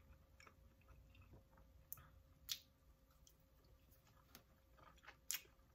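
Faint chewing and soft wet mouth clicks from someone eating a pig in a blanket dipped in sauce, with a few louder clicks about two and a half and five seconds in.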